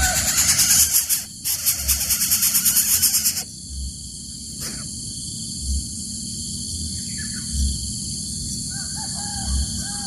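Greater coucal nestlings giving a harsh, rapidly pulsing rasping call that cuts off abruptly about three and a half seconds in. After that a steady high-pitched insect drone continues, with a few faint short calls near the end.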